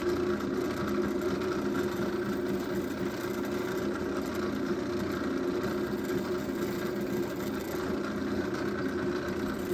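Drill press running steadily with a constant motor hum while a quarter-inch twist drill, its chewed-up shank turned down to run true, bores into a wooden block and cuts clean holes.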